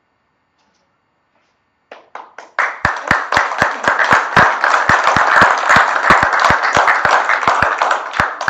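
A small audience applauding. A few scattered claps come in about two seconds in, build at once into steady clapping, and taper off near the end.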